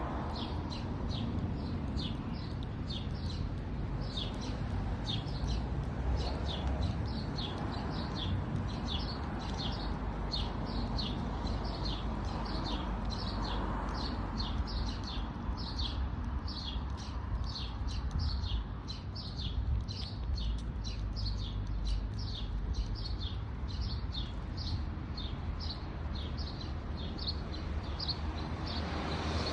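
A single bird chirping over and over, about two short chirps a second, over a steady low rumble.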